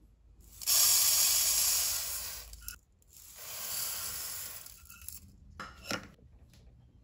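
Dried yellow split mung beans poured from a measuring cup into an empty metal pot, in two pourings of a dry, hissing patter of grains hitting the pot. A couple of light knocks follow near the end.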